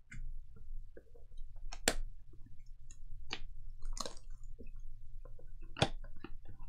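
Trading cards and packs being handled on a table: a scatter of short clicks, taps and rustles over a steady low hum.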